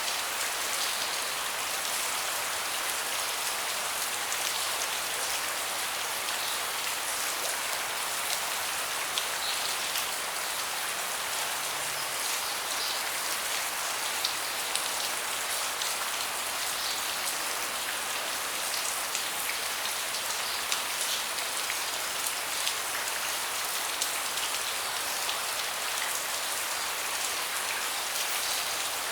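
Steady rain falling on a deck, with many separate drops ticking sharply among the even patter.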